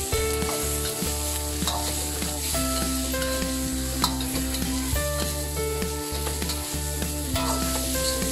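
Chicken legs and thighs sizzling in a hot wok with garlic and onion while a metal ladle stirs and scrapes them, the ladle clicking against the wok at irregular intervals. Background music plays underneath.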